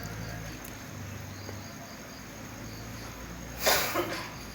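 Crickets chirping in an even, repeating pattern over a faint steady hiss. Near the end comes a short loud burst with a smaller one right after it.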